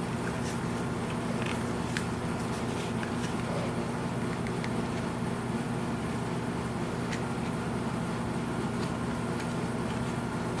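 A steady low hum throughout, with a few faint, light clicks of the figure and its plastic packaging being handled, most of them in the first few seconds.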